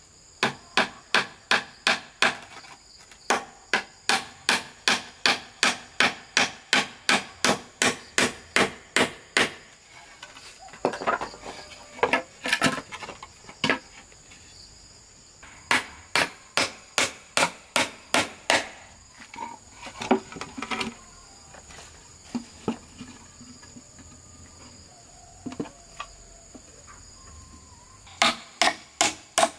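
Hammer driving nails into wooden boards, in runs of quick, even blows about three a second, broken by pauses with boards being shifted and handled. Insects shrill steadily in the background.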